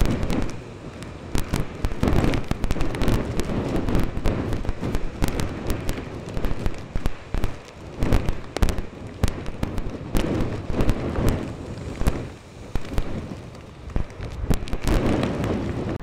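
Storm wind gusting over the microphone with a dense run of crackling pops, over the low surging rumble of Lake Superior waves breaking against the rocky shore.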